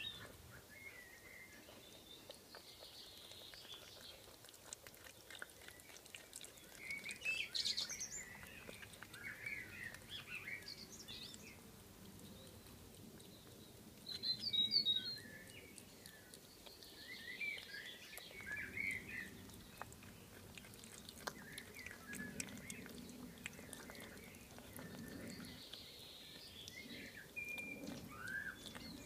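Small birds chirping on and off in the background, short bursts of twittering calls scattered throughout, loudest about halfway through.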